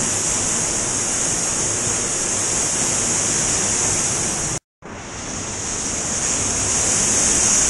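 Steady rushing of a swollen mountain river pouring down cascades and a waterfall in a rock canyon. About two-thirds of the way through it cuts out for a moment, then swells back.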